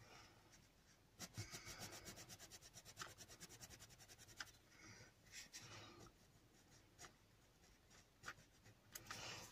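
Faint scratching of a black coloured pencil on brown kraft paper: quick back-and-forth shading strokes, about six or seven a second, fill in a swatch, then slower, uneven strokes as a word is written.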